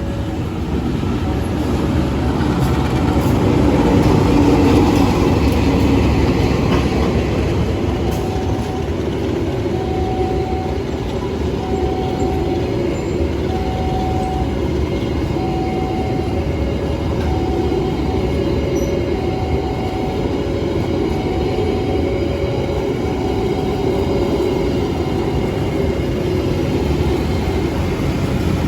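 A train running past on the rail line with a steady rumble that is loudest about four to five seconds in. A two-note tone alternates about every second and a half throughout.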